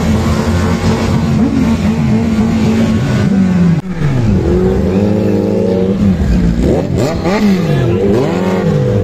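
Several superbike engines running together. One holds a steady note while others are revved up and down again and again, giving overlapping rising and falling sweeps. There is a short drop in the sound a little before halfway.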